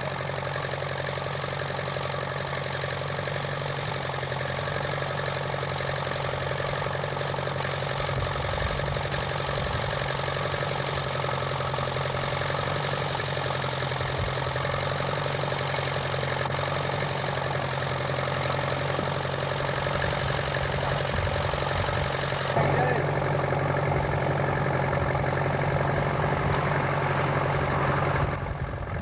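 Tractor engine idling steadily, with an abrupt shift in the sound near the end.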